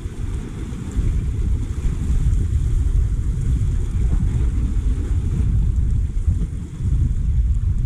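Wind buffeting the camera microphone: a loud, gusting low rumble with no steady tone.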